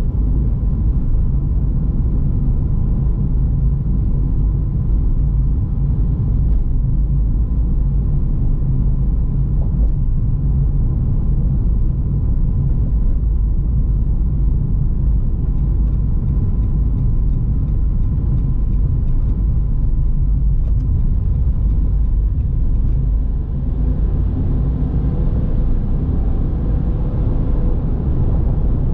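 Car driving along the road: a steady low rumble of engine and tyres.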